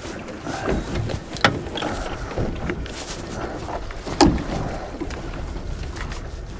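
Choppy sea washing against a small fibreglass boat's hull, with wind on the microphone. Two sharp knocks stand out, about a second and a half in and again just after four seconds.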